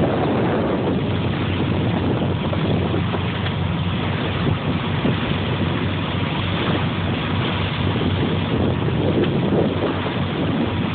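A fishing boat's engine runs with a steady low drone, under wind buffeting the microphone and the wash of the sea.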